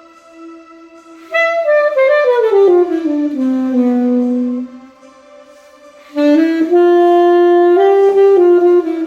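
Alto saxophone played live. About a second in, a loud phrase steps down to a long low note that fades out. After a short pause, a second loud phrase of held notes moves up and down. A soft held tone lies underneath in the quiet gaps.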